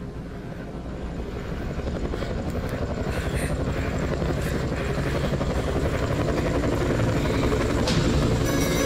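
Engine sound effect with a rapid, steady chop, like helicopter rotors, played over the hall's speakers and growing steadily louder.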